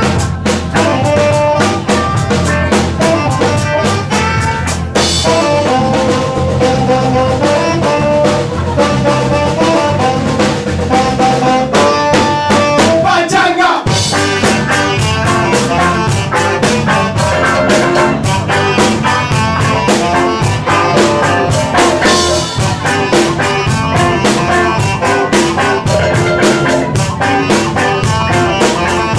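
A live band plays an instrumental number, the saxophone carrying the melody over electric guitar and a drum kit keeping a steady beat. There is a brief break in the low end about fourteen seconds in.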